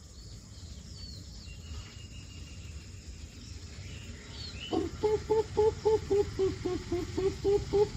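A man's vocal imitation of the greater coucal's call: a rapid series of low hoots, about four a second, starting about five seconds in. Before it, faint chirps from other birds.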